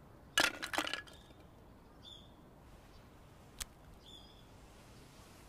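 A small object landing with a brief clatter of several sharp clicks about half a second in, then quiet outdoor ambience with a short bird chirp twice and a single sharp click in between.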